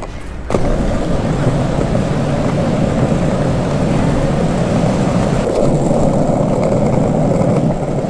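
Small cruiser skateboard's wheels rolling over asphalt street: a steady, rough rumble that starts suddenly about half a second in.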